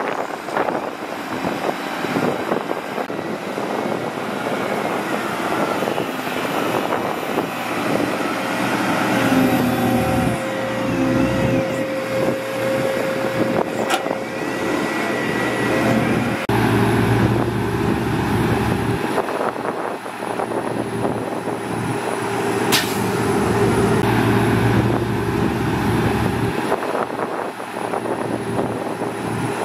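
Diesel engines of heavy earthmoving machines running under load: a DISD SD300N wheel loader pushing sand, with a crawler bulldozer and dump trucks working alongside. A steady engine drone whose tone shifts abruptly about halfway through, with a couple of brief sharp clicks.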